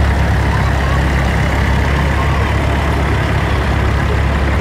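Vintage tractor engines running steadily as a procession of tractors drives past, a continuous low engine drone.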